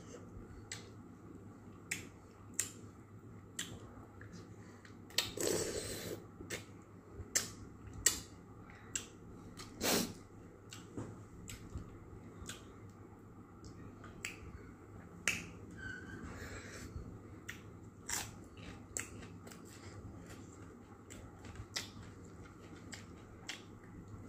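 A person eating with his fingers from a plate: irregular short, sharp clicks and smacks of chewing and of fingers picking at the plate, with a brief louder rustle about five seconds in.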